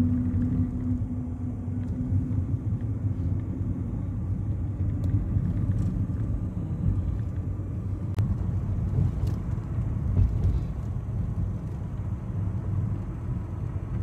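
A car driving, heard from inside the cabin: a steady low rumble of engine and tyres on the road.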